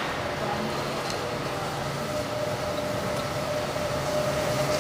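A low-floor city tram comes along snow-covered street track toward the listener, its running noise growing louder as it nears. A steady whine sets in about two seconds in.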